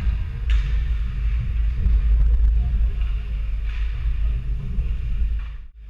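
Indoor ice rink ambience during a youth hockey game: a loud, steady low rumble with brief swells of hiss about half a second in and again near four seconds. The sound drops out briefly near the end.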